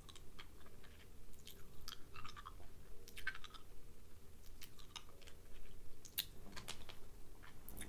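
Soft ASMR mouth sounds close to the microphone: irregular wet clicks and smacks of the lips and tongue.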